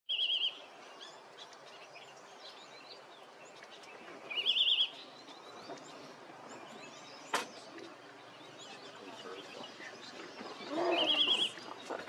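Chestnut-bellied nuthatch calling: three short, high, quavering trills, each about half a second long, spaced several seconds apart. A single sharp click comes near the middle.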